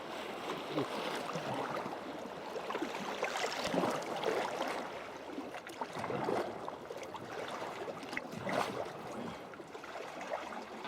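Sea water splashing and gurgling around a sea kayak as it is paddled, with several louder splashes from the paddle strokes.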